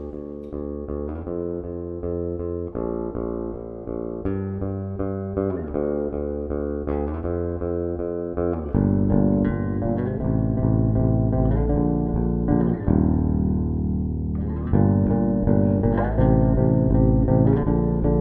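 Background music: an instrumental track with plucked guitar chords and bass, growing fuller and louder about halfway through.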